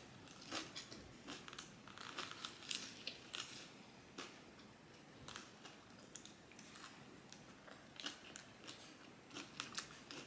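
A person chewing food close to the microphone, with faint, irregular crisp crunches and bites.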